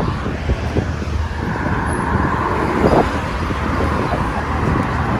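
Steady road traffic noise, a continuous rush and rumble of passing cars that swells briefly near the middle.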